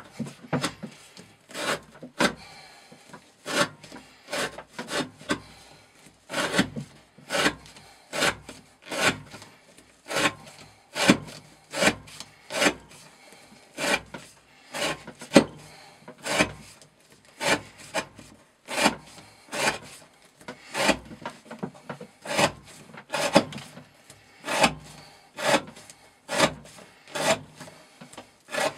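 Glock FM 78 knife blade shaving curls off a wooden stick, one short scraping cut after another, about three strokes every two seconds. These are repeated test cuts that check how well the freshly sharpened 30° V edge holds up.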